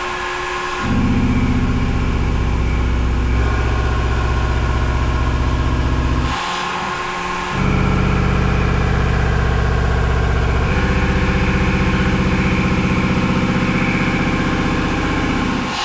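Inserted thread mill, almost 2 inches in diameter, cutting large four-pitch threads in 4140 steel on a CNC machining center: a steady, low-pitched machining hum with an even tooth-pass buzz. It drops away for about a second around six seconds in, then resumes. The cut sounds smooth and stable, which the machinist takes as a sign of good cutting.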